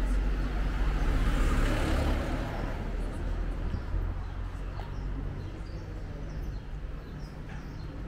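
Street ambience dominated by a low motor-vehicle engine rumble that is loudest in the first two seconds and then fades, with faint bird chirps near the end.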